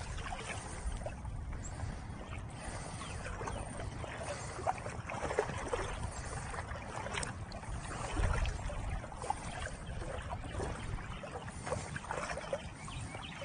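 River water lapping and splashing close by as a wader in hip waders moves through the current. Low wind buffets the microphone, swelling about eight seconds in.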